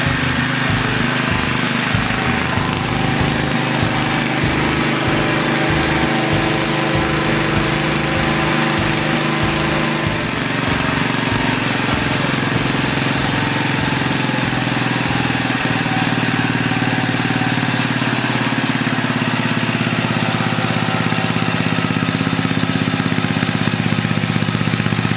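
Rebuilt Wisconsin AKN single-cylinder air-cooled engine on a Bolens Ridemaster garden tractor running steadily after its first start-up, its speed shifting slightly about ten seconds in and again around sixteen seconds in.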